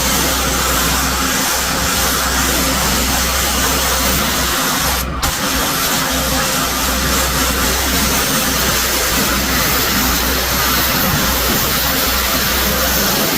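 Pressure washer running steadily: a low motor drone under a hiss of spray, with a brief break about five seconds in.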